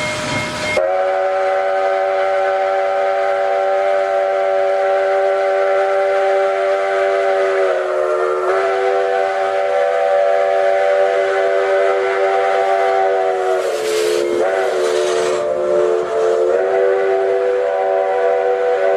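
Nickel Plate Road five-chime steam whistle blowing one long chord, opening with a rush of steam. The chord sags and wavers in pitch twice, near the middle and about three-quarters of the way through.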